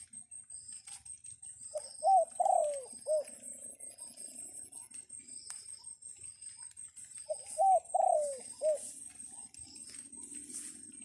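Dove cooing: two phrases of three or four low notes each, several seconds apart. A steady high-pitched whine with scattered clicks runs underneath.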